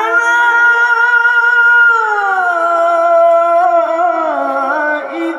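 Amplified male Qur'an reciter (qari) holding one long melodic note in tilawah style. The note is steady at first, glides down about two seconds in, then wavers through ornamented turns near the end.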